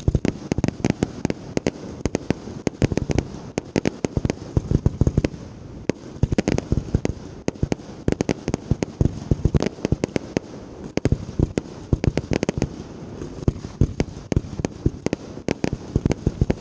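Fireworks fired at close range in a continuous barrage: a dense run of sharp bangs and crackle, several a second, from launches and bursts mixed with the rapid shots of Class B cakes.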